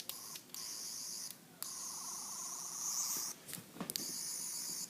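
Doctor Who sonic pen toy playing its sound effect through its small speaker: a high-pitched electronic warbling whir in several bursts broken by short gaps, with a lower warbling tone joining for a second or two in the middle.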